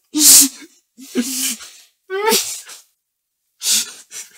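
A man laughing in short, breathy bursts, four or five in a row. The first is the loudest, and one slides down in pitch.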